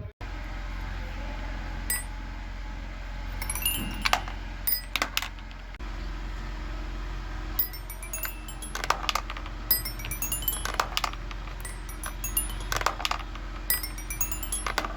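Fidget toys being clicked and rattled: irregular sharp clicks, some in quick clusters, with a thin metallic ringing after many of them, over a steady low hum.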